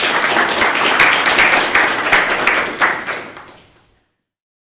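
Audience applauding: many people clapping at once, fading out about four seconds in.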